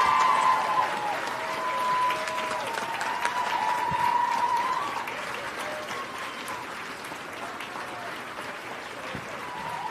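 Audience applauding, a dense patter of many hands clapping, strongest in the first few seconds and easing off after about five.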